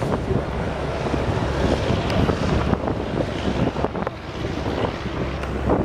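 Lockheed C-130H Hercules's four Allison T56 turboprop engines running at high power with a deep steady drone as the aircraft rolls away down the runway, mixed with wind buffeting the microphone.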